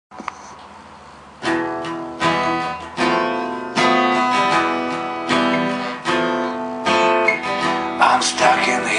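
Acoustic guitar strumming chords, the intro of a song. It comes in about a second and a half in after a faint noise, with a new chord struck about every three-quarters of a second.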